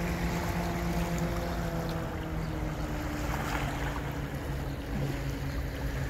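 A speedboat's engine drones steadily across the water, its pitch drifting slowly lower, over a steady hiss of wind and water.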